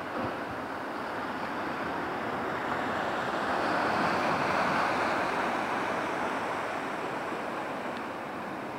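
Sea surf breaking and washing over rocks: a steady rush that swells to its loudest about four to five seconds in, then eases.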